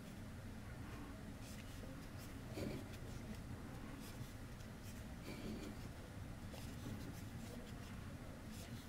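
Faint, irregular scratching and soft clicks of a metal crochet hook drawing yarn through stitches, over a low steady hum.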